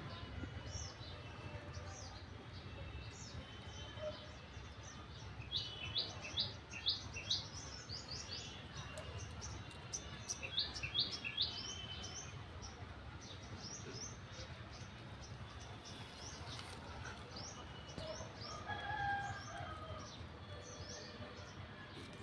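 Several birds chirping and singing, one of them twice giving a phrase of about five quick descending notes, over a steady low background rumble.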